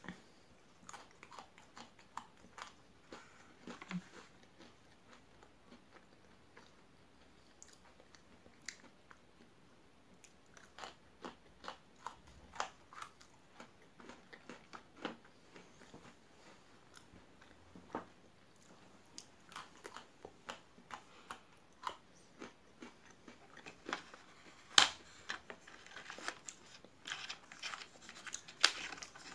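Close-miked biting, crunching and chewing of Pocky biscuit sticks, with short crisp snaps and crackles scattered throughout. In the last few seconds there are louder, denser clicks and taps as the sticks are handled on the wooden tray.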